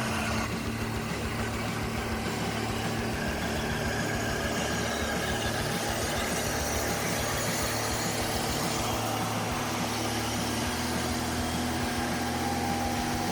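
Heavy truck engine running at steady revs, a constant drone with no change in pitch.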